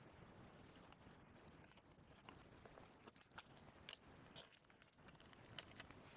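Faint handling of basketball trading cards: scattered small clicks and rustles as cards are slid and flipped by hand, over near-silent room tone.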